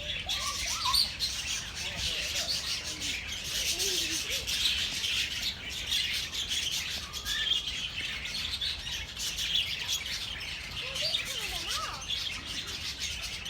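Many small birds chirping and tweeting at once in a dense, unbroken chorus, with some lower squeaky, gliding calls mixed in, more of them near the end.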